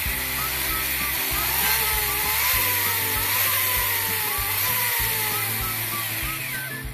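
Arrma Kraton RC truck's electric motor and drivetrain whining as its wheels spin freely in the air, the pitch rising and falling with the throttle. A pulsing low hum comes from the truck vibrating with water sloshing inside its tyres; the speaker says the vibration eases as the water works out. The whine dies away near the end as the throttle is let off.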